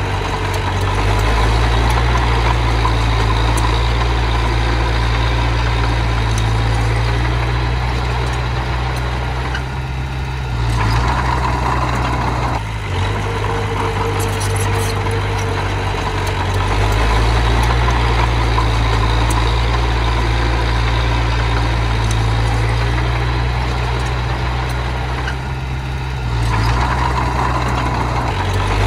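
Miniature bulldozer's engine running steadily, with its note dipping and shifting twice, briefly each time, about a third of the way in and again near the end.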